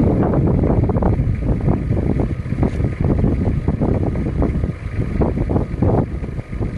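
Wind buffeting the microphone: a loud, uneven low rumble that gusts up just before the start and flutters on throughout.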